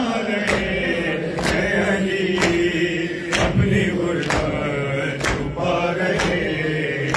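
Male voices chanting a Shia noha lament in a slow refrain, over rhythmic matam: a crowd of mourners striking their chests in unison, a sharp slap just under once a second.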